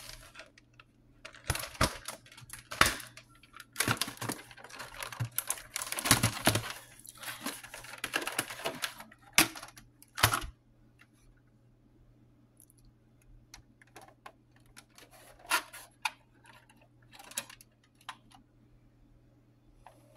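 Battered plastic VHS clamshell case being handled and opened and its cassette moved: a busy run of plastic clicks, rattles and scrapes, then only a few scattered clicks from about ten seconds in.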